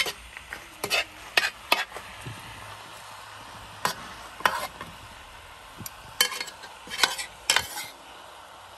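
A ladle stirring fish pieces and masala in a brass cooking pot, with sharp, irregular scrapes and knocks against the pot wall about every half second to second. Underneath runs the steady sizzle of the mixture frying.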